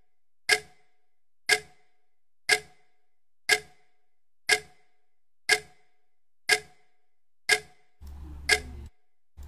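Countdown clock-tick sound effect for a quiz answer timer, one sharp tick each second, every tick the same. A faint low hum comes in briefly near the end.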